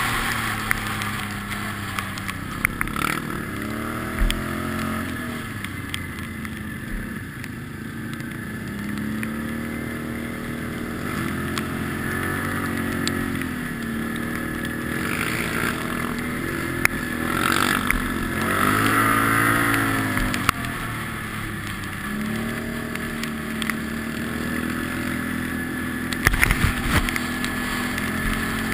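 ATV engine running while riding a dirt track. Its pitch rises and falls several times as the throttle opens and eases off, with occasional sharp knocks.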